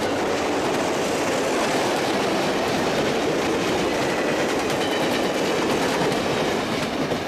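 Passenger train cars rolling past: a steady rush of steel wheels on rail.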